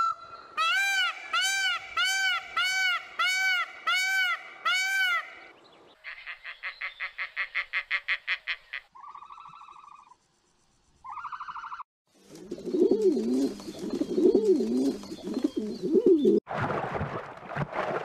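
Indian peafowl (peacock) calling: a run of about eight loud honks in quick succession, each rising and falling in pitch. These are followed by other animal sounds: a rapid series of pulsed calls, two short calls, and then a low wavering call.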